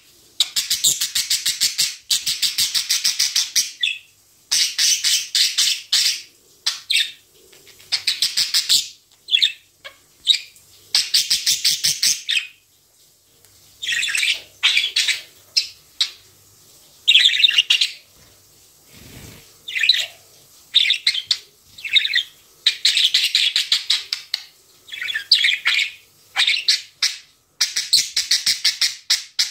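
Budgerigar singing: rapid, buzzy chattering warbles in bouts of one to three seconds, with short pauses between them.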